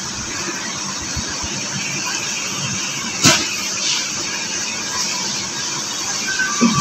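Steady background hiss with one sharp knock on a ceramic mixing bowl about three seconds in, and a fainter click near the end.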